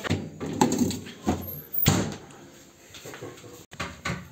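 Refrigerator door and a lidded stainless-steel bowl being handled as the bowl is put into the fridge: several clunks and knocks in the first two seconds, and one more near the end.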